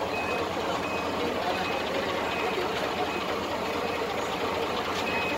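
Wheel loader's reversing alarm sounding regular short high beeps, a little faster than one a second, over its diesel engine running and the murmur of a crowd.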